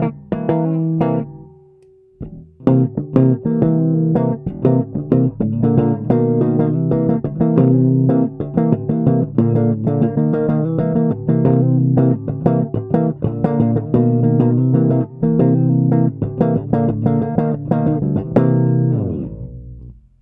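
Custom four-string electric bass with an ash body and a Kent Armstrong MM pickup, strummed in chords in a quick steady rhythm. There is a brief break about two seconds in, and the last chord fades out near the end.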